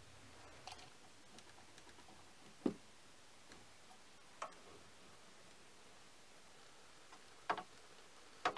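A few sparse, light clicks and knocks of metal tooling being handled and set on the lathe, the loudest about three seconds in and two more close together near the end.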